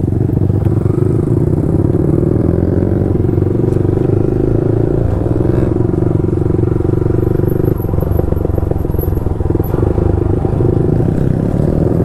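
Motorcycle with an aftermarket exhaust running steadily while being ridden; the engine note holds a fairly constant pitch throughout.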